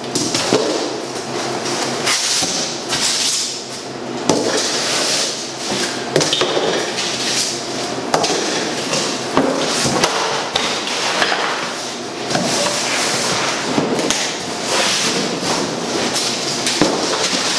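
Cardboard and foam packing being handled: foam packing sheets scraping out of a large cardboard box and dropping to the floor, then the outer box being lifted off, with a string of sharp knocks and thuds of cardboard throughout.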